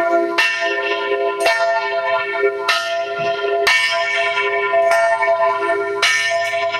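A large church-type bell rung over and over, about five strokes, each new stroke sounding over the ringing of the one before.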